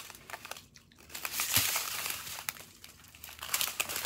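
Clear plastic pouches of diamond-painting drills crinkling as they are handled and turned over, in irregular rustles with a short lull about three seconds in.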